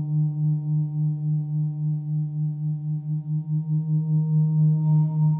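A 30-inch (75 cm) TTE KongKlang Earth gong sounding under a flumie friction mallet rubbed over its face: a sustained humming drone with a strong low tone and a stack of overtones, wavering in loudness about two or three times a second. A little past three seconds in the drone dips, then swells louder.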